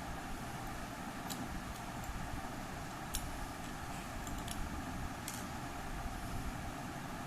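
A handful of sharp plastic clicks and ticks, spaced irregularly, as an LED bulb's housing is handled and pried at, over a steady background hum.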